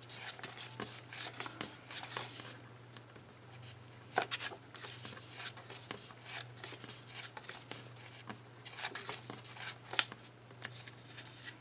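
Faint desk-crafting sounds of paper and sticker sheets being handled: scattered light rustles, peels and small taps, with two sharper clicks about four and ten seconds in. A low steady hum runs underneath.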